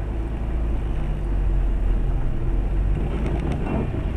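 Steady low rumble of car engine and road noise heard from inside a moving car, with a few faint clicks about three seconds in.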